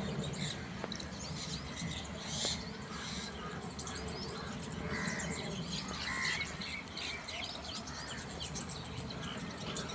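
Birds chirping and calling: many short, overlapping chirps and tweets, over a steady low background rumble.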